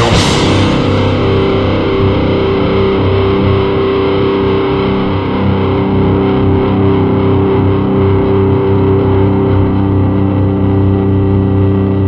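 Hardcore punk recording: the drumming stops on a crash right at the start, and a distorted electric guitar chord is left droning steadily.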